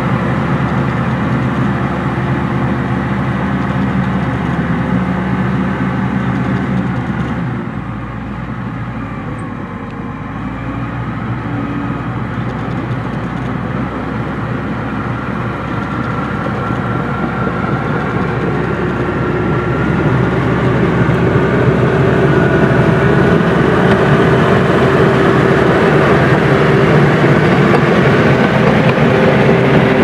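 Komatsu crawler bulldozer's diesel engine running under load as the machine crawls across mud on its steel tracks. The sound eases a little about eight seconds in, then builds again and is loudest in the last third.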